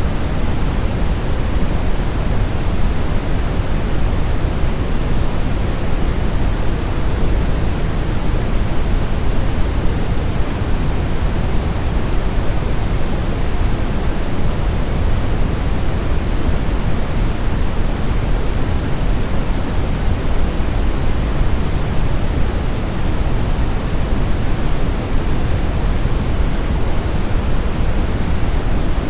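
Steady brown noise: an even, unchanging rush of synthetic noise, heaviest in the deep low end and falling off toward the treble.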